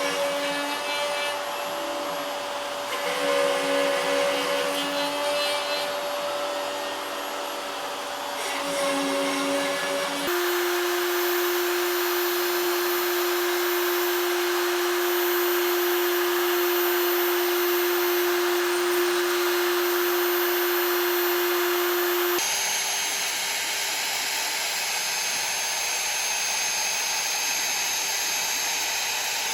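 CNC router spindle running with a steady whine while the cutter mills the workpiece, with cutting noise underneath. The sound changes abruptly twice, about 10 and 22 seconds in, as one milling run gives way to another, each at its own spindle pitch.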